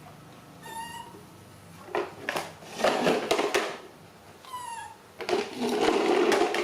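A baby monkey calling. It gives short thin high coos about a second in and again near the middle, and between them two longer, loud, harsh cries.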